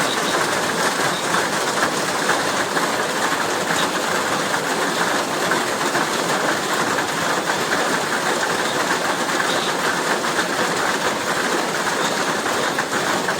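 Heavy rain falling, a steady dense hiss made of countless tiny drop impacts.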